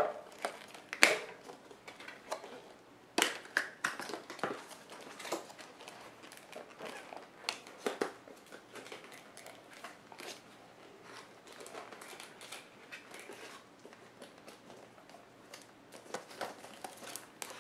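Stiff hard-plastic packaging case being pried and twisted open by hand, with irregular sharp clicks and cracks and plastic crinkling. The loudest cracks come at the very start, about a second in and about three seconds in.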